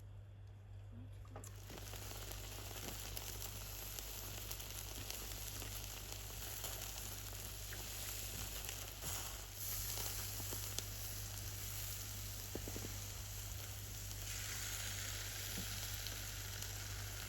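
Food sizzling on a hot pan or grill, a steady frying hiss that starts about a second and a half in and grows thinner and higher near the end.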